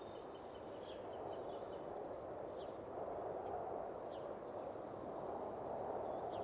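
Steady outdoor ambient noise with faint, short, high bird calls every second or two.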